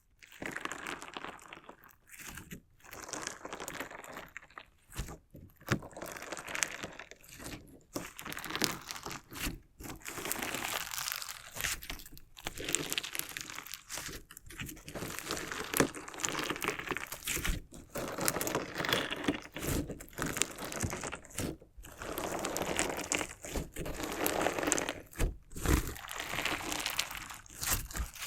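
Crunchy slime mixed with decorative stones being worked by hand, crackling and crunching in irregular bursts with short pauses between them.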